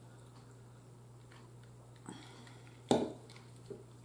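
Quiet sipping and small mouth sounds from a woman drinking from a glass, with one sharp knock about three seconds in, over a faint steady low hum.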